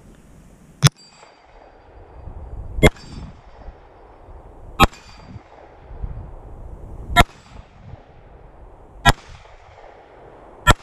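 Six shots from a Glock 19 Gen 4 9mm pistol, fired slowly about two seconds apart. A faint metallic ring follows the first few shots, the sound of bullets hitting a steel target.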